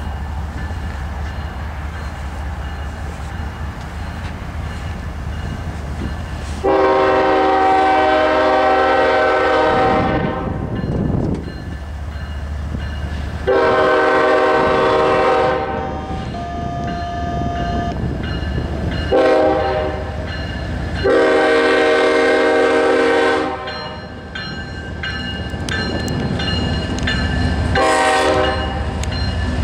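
Diesel locomotive air horn on a Union Pacific AC45CCTE sounding the grade-crossing signal: long, long, short, long, with another blast starting near the end. A steady low rumble from the diesel locomotives runs beneath and between the blasts.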